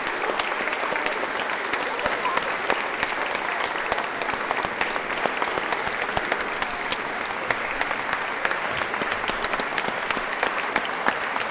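Audience applauding steadily in a concert hall: many hands clapping at once.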